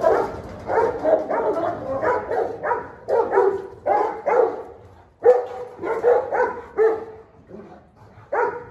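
Large mastiff-type dogs barking in fast runs of deep barks, about three a second, with a brief break about five seconds in and a quieter spell near the end.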